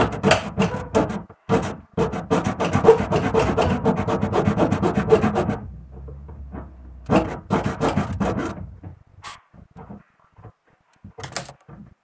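Rapid, dense scraping strokes against the washing machine's plastic tub base as a glued-on part is worked loose. They run for about five and a half seconds, pause, come back as a shorter burst a little later, then trail off into a few scattered scrapes.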